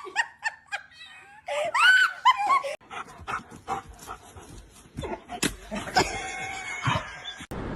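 A dog gives a few short whines that rise and fall, followed by scattered clicks and knocks.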